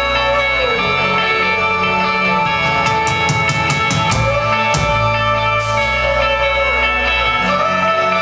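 Live pop-rock band playing loud: electric guitar and drum kit, with a quick run of cymbal hits about three seconds in.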